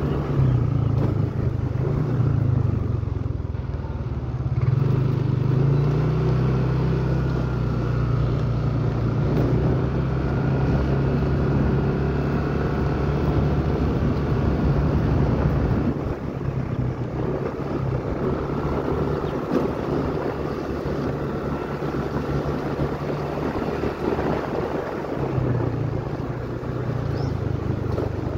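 Motor vehicle engine running steadily at low road speed under a haze of road noise. Its pitch shifts about five seconds in, it eases off about halfway through, and it picks up again near the end.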